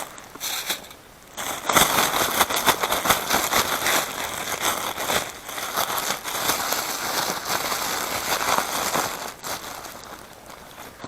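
Floured burbot pieces sizzling and crackling in hot oil in a non-stick frying pan. The sizzle starts about a second and a half in and fades near the end.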